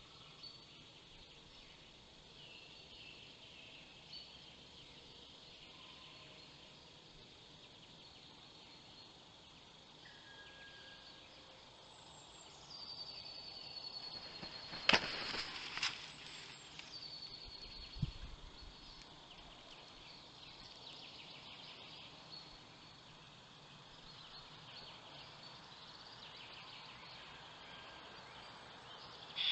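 Faint woodland ambience with distant birds chirping. About halfway through, a thin high whistled note is held for a couple of seconds. Just after it come two sharp clicks, the loudest sounds here, and a few seconds later a dull thump.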